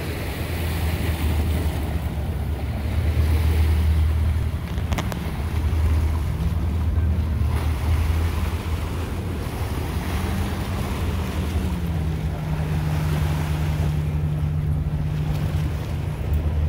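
Wind buffeting the microphone and choppy harbour water splashing, over the low steady drone of a boat engine whose pitch wavers and then holds level in the second half.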